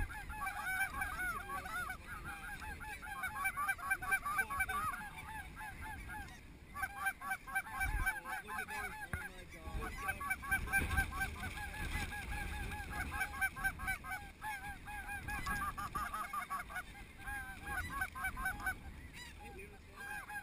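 A large flock of snow geese calling: a dense chorus of many overlapping short, high honks, with brief lulls about six and a half and nine and a half seconds in.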